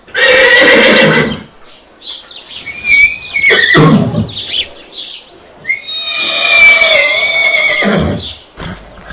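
Horse neighing three times: a short loud call, then a quavering whinny about two and a half seconds in, then a longer whinny with a falling pitch at its end. The calls start and stop abruptly.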